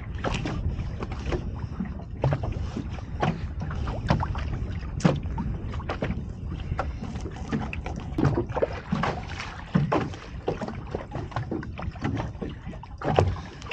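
Irregular knocks, clicks and handling noises aboard a small fishing boat, over a steady low rumble.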